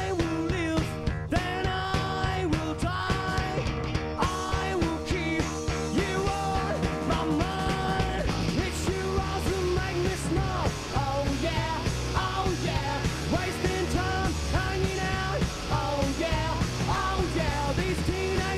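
Three-piece rock band playing live: electric guitar, bass guitar and drum kit with sung vocals over them.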